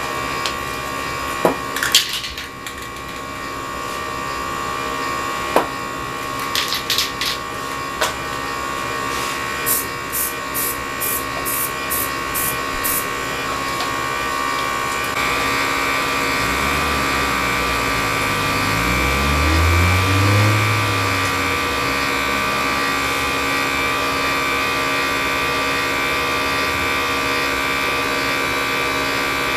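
Aerosol spray paint cans hissing as paint is sprayed onto poster board, with scattered sharp clicks and a quick run of about seven clicks near the middle; the hiss grows fuller about halfway through. Over a steady hum, a low engine-like sound swells and fades about two-thirds of the way in.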